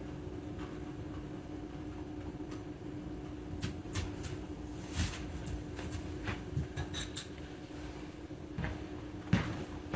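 Scattered light clicks and knocks on a tile floor, a handful in the middle and a sharper one near the end, over a steady low hum.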